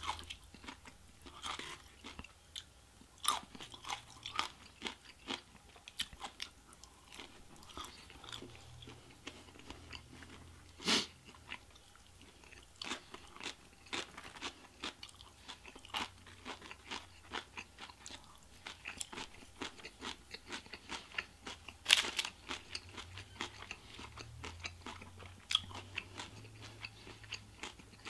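Close-miked chewing and crunching of Chinese takeout food, with many small clicks throughout and two louder cracks, about eleven and twenty-two seconds in.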